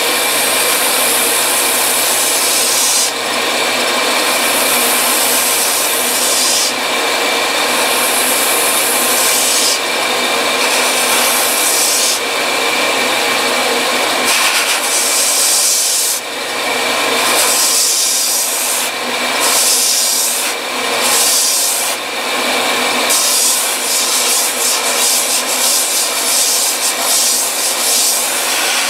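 Belt sander running steadily while a rubber recoil pad and the wooden butt of a rifle stock are pressed against the slack side of the belt. The contact makes a harsh grinding hiss that comes and goes with each pass, in stretches of a few seconds that become shorter and quicker toward the end.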